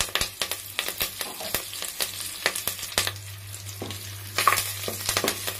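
Fresh curry leaves sizzling and crackling in hot oil in a clay pot as the tempering starts, with a cluster of louder pops about four and a half seconds in.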